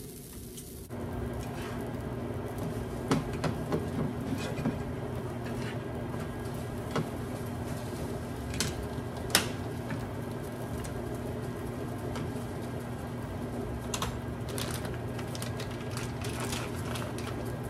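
A plastic spatula scraping and tapping in a small nonstick skillet of scrambled eggs. It makes a scattering of light clicks and knocks over a steady low hum.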